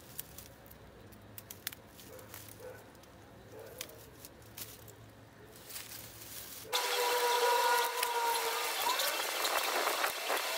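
Hand pruners snipping and dry, dead rose canes crackling and rustling as they are cut and pulled out of an old shrub rose. At first there are scattered sharp clicks. About two-thirds of the way in, the rustling suddenly becomes much louder and hissier.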